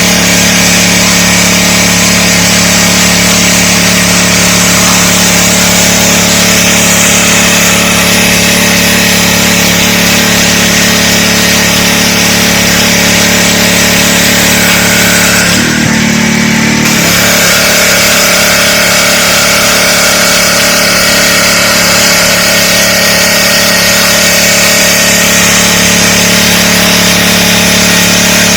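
DeWalt 3600 psi gas pressure washer running steadily under load, its engine drone mixed with the hiss of the high-pressure water spray. About sixteen seconds in, the hiss drops away for about a second and the engine note shifts, then the spray resumes.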